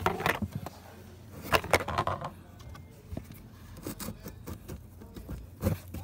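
Light clicks, taps and short scraping sounds of parts being handled during a car cabin air filter change, with the loudest scrapes at the start and about a second and a half in.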